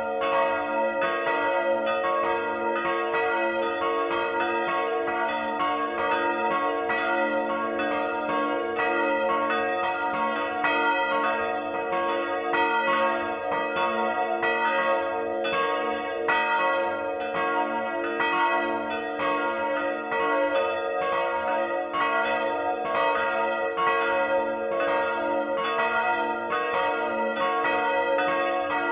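Swinging bronze church bells ringing together at close range in the belfry, the tower's ring of two 1952 Rincker bells and a 1759 bell by Johann Peter Bach, with strike notes a' and c-sharp''. The strokes overlap in a steady, unbroken stream over a sustained hum.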